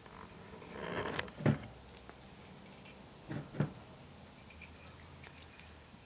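Quiet hand-handling sounds: fingers rubbing Vaseline onto the end of a turned wooden spinning-wheel maiden upright, with two soft knocks, about one and a half and three and a half seconds in.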